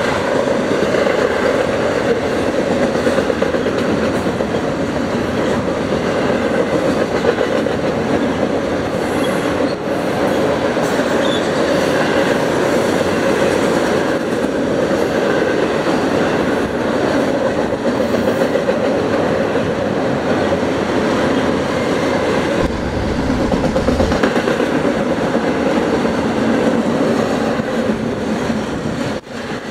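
Double-stack intermodal freight train's container well cars rolling steadily past, a continuous rumble and clatter of steel wheels on the rails.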